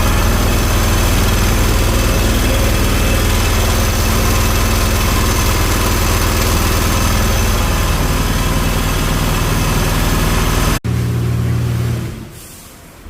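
High-pressure washer pump running steadily, with a deep hum and a loud hiss over it. It cuts off abruptly near the end, and a shorter, lower hum follows and dies away.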